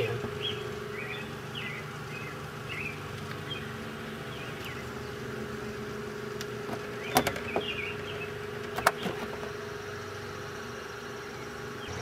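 Two sharp clicks, about seven and nine seconds in, from plastic push-pin rivets being handled while a car's plastic splash guard is fitted. Under them runs a steady background hum with faint, short bird chirps.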